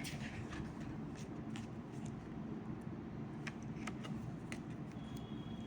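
Faint ticks and rustles of oracle cards being handled, over a low steady hum.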